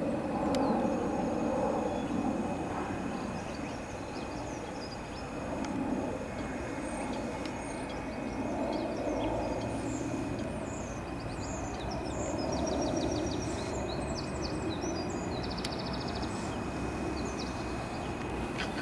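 Outdoor city ambience: a steady low rumble of distant traffic, with small birds chirping and, twice, giving short quick trills.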